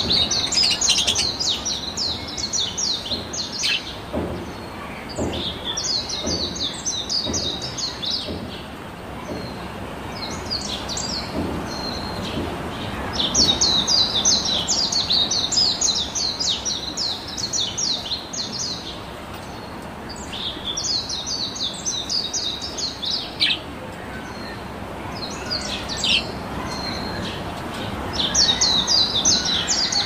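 Caged budgerigars chattering: bouts of rapid, high chirps lasting a few seconds each, broken by short lulls.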